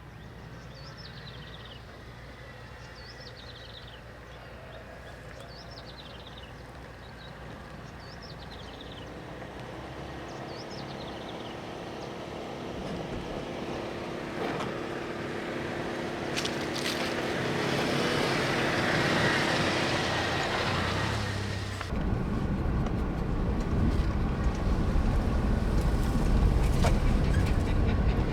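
Birds chirping over a low hum, then a motor vehicle approaching and passing, its engine tone rising to a peak and fading. About two-thirds of the way through, the sound changes abruptly to a loud, steady low rumble.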